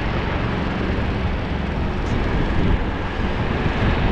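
Motorboat engine running steadily, a low hum under a constant hiss.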